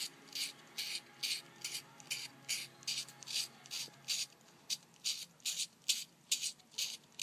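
A plastic lighter rubbed back and forth in quick, even strokes, about two and a half a second, working it up so that it will throw sparks when lit.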